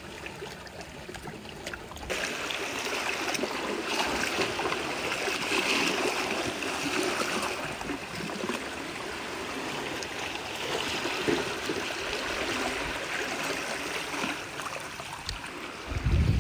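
Shallow seawater trickling and gurgling in a rock pool, a steady wash of water sound that fills out after about two seconds.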